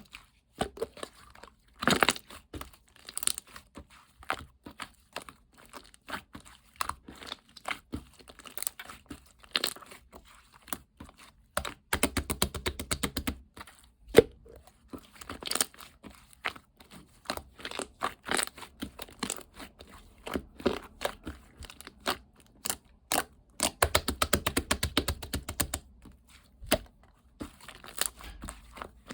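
Slime being squished and pressed by hand, making sticky clicks, pops and crackles. Twice, at about 12 seconds and again near 24 seconds, it gives a quick rapid run of clicks for a second or two.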